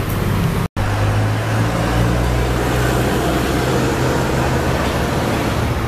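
Steady road traffic noise with a continuous low hum, broken by a brief dropout under a second in.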